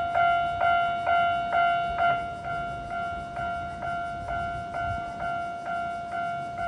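Japanese station-yard level crossing warning bell ringing, about two strikes a second, each with a ringing tone. It signals the crossing closing for a train. It gets quieter about two and a half seconds in.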